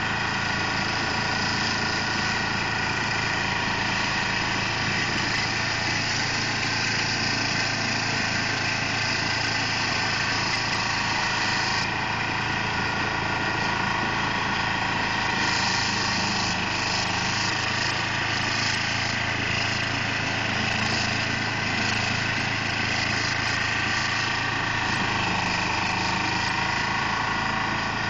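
2004 Carlton SP4012 stump grinder running steadily, its engine droning while the spinning cutter wheel works at a stump, with the grinding sound shifting from about twelve seconds in.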